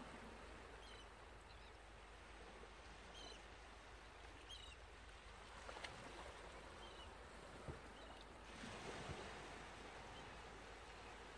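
Near silence: faint handling of fabric, with a few soft clicks about halfway through and near the end as sewing clips are fixed around the bag's rim.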